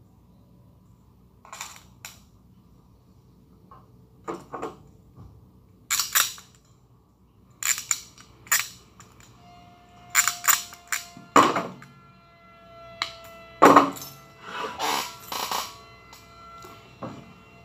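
Irregular sharp clicks and knocks of hand work on an elevator control cabinet's plastic terminal blocks and wiring duct, sparse at first and coming faster about ten seconds in. A faint steady tone runs under them from about halfway.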